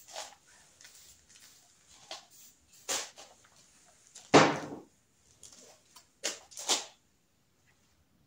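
Short hissing bursts from an aerosol can of hairspray being sprayed on as grip glue for the motorcycle's throttle sleeve. There are four bursts, the longest and loudest a little over four seconds in, with faint handling sounds between them.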